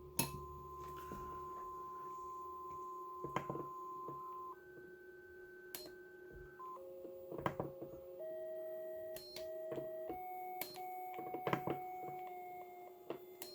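(tr)uSDX transceiver's receiver audio: a steady beat-note tone from an injected test signal, heard through the rig's small built-in speaker. The tone jumps in pitch several times as the rig is tuned across the signal toward its center frequency, with short clicks at the tuning steps.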